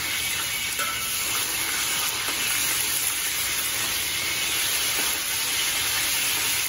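Wagyu burger patties sizzling steadily in grapeseed oil in a discada, with a metal spatula scraping and pushing them across the pan.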